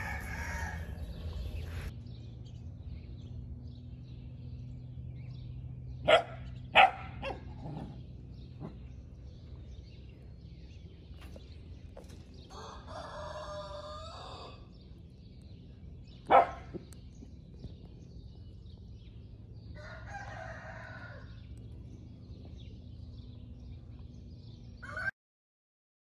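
A bird calling twice in the background, each call about two seconds long, over a steady low hum, with a few sharp, loud clicks in between. The sound cuts off near the end.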